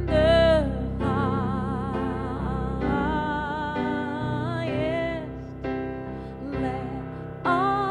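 Slow instrumental worship music: a melody of long notes with vibrato played on a Roland Aerophone AE-30 digital wind instrument over sustained chords and bass.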